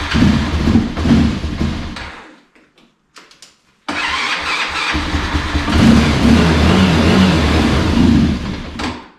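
Kayo Bull 150 ATV's small engine, started after sitting idle for a while, running then cutting out about two seconds in. It fires again abruptly a second and a half later, runs a few seconds, and dies again near the end.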